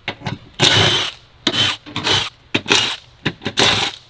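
Power tool spinning out the 13mm bolts of the car's underbody cross brace, run in a series of short bursts with a brief whine in several of them.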